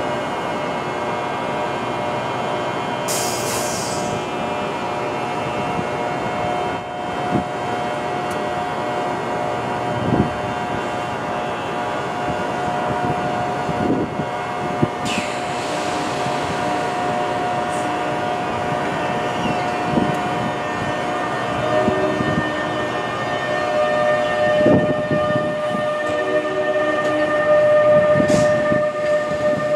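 NJ Transit ALP-46 electric locomotive with steady electrical whine tones while standing with its train. About three quarters of the way through the tones shift to a new pitch as it pulls away, with a few short clunks.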